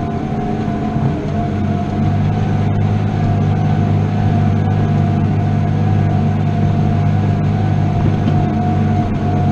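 New Holland T7 210 tractor's six-cylinder diesel engine running steadily under load while pulling a five-furrow plough, heard from inside the cab as a deep, even drone with a steady whine above it.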